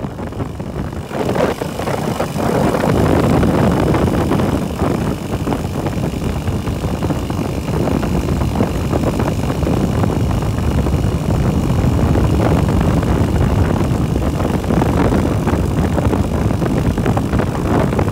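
Steady low rumble of a ride on a motorbike: wind buffeting the microphone, mixed with road and engine noise.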